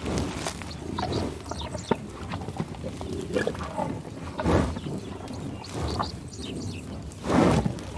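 Bison grazing, giving low grunts and growls, with two louder grunts about halfway through and near the end and quieter rustling and munching between.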